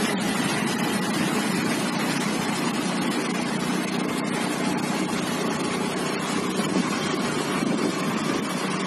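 Two-wheeler engine running steadily while riding, with wind and road noise over the microphone.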